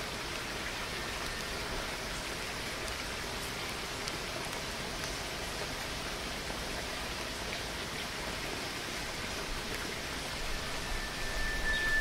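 Waterfall: a steady, even rush of falling water. Near the end a faint, thin, high whistling note is held over it.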